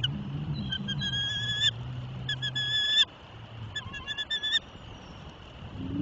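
Bald eagles calling at the nest: three bursts of high-pitched, chattering piping notes, each lasting well under a second.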